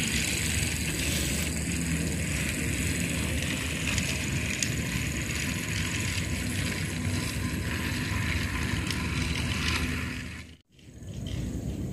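Battery-powered Railking toy train running along its track, a steady motor whirr with wheel rattle, its battery nearly flat. The sound drops out suddenly near the end and comes back a moment later.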